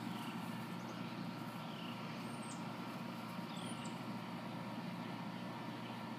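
Steady low background rumble, with short, high, downward-gliding chirps repeating every second or so.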